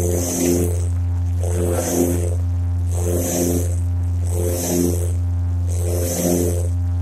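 Aircraft engine noise inside the cockpit: a steady low drone with a hiss and throb that swell regularly, about every second and a half.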